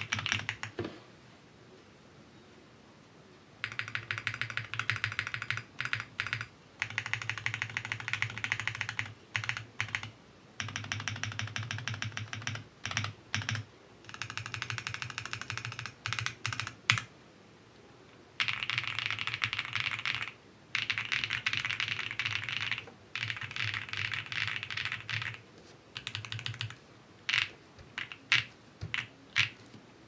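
Clacky typing on an ACR Pro 75 mechanical keyboard with Drop Holy Panda X tactile switches, PBT keycaps and a PE foam sheet with polyfill in the case. After a short pause it runs in fast bursts of keystrokes broken by brief gaps, with keys pressed singly now and then, more sparsely near the end.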